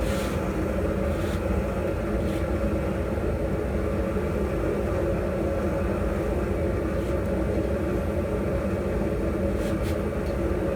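Steady mechanical drone with a constant low hum, running unchanged, with a few faint light clicks over it.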